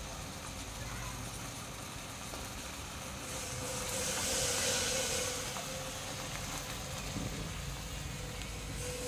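Fermented snakehead fish fillets deep-frying in a small pan of hot oil, the oil bubbling and sizzling steadily; the sizzle swells louder for a couple of seconds in the middle.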